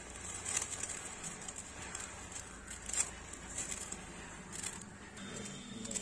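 Matchsticks burning with a faint crackle, with a few sharp little pops scattered through, the loudest about three seconds in.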